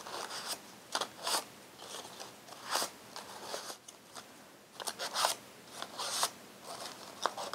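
Colored construction-paper petals rustling and scraping as they are drawn over a thin round wooden stick to curl them, in short irregular strokes.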